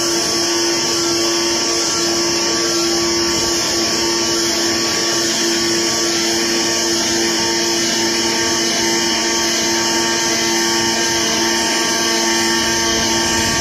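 AOKE CNC flatbed cutter plotter running, its cutting head working across a cardboard sheet: a steady mechanical hum with a high whine over it.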